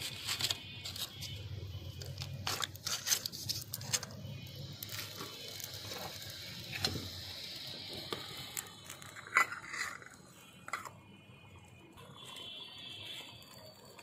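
Small metal pans being handled on a brick fire hearth: scattered clinks, knocks and scrapes of metal on metal and brick, with a few louder knocks in the second half.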